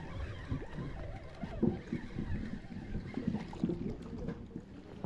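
Water lapping against a boat's hull, with irregular low knocks and bumps and some wind on the microphone.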